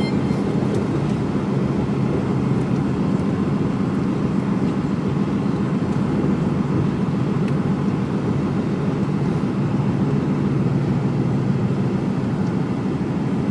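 Mercedes Actros HGV's diesel engine running steadily, heard from inside the cab as the truck drives along: an even, low drone with no change in pitch.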